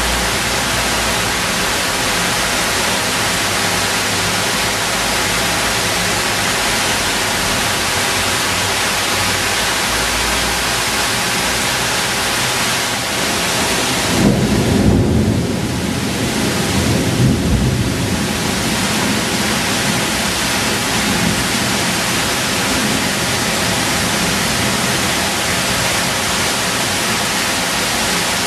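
Heavy tropical downpour, a steady dense hiss of rain. About halfway through, a low rumble of thunder swells for a few seconds under the rain.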